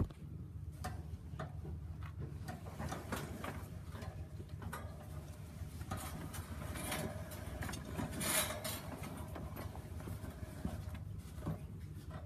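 A towel rustling and being handled close to the microphone, with many scattered small clicks and scrapes and a denser patch of rustling past the middle, over a steady low hum.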